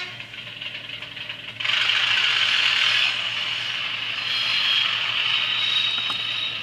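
N gauge Graham Farish Class 37 model locomotive's DCC sound decoder playing its diesel engine sound through the model's tiny speaker, with the rattle of the model's mechanism and wheels on the track. The engine sound gets louder about a second and a half in.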